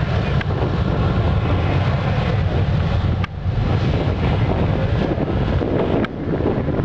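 Boeing jet airliner's engines at takeoff power during its takeoff roll, heard from a distance as a steady low rumble mixed with wind buffeting the microphone.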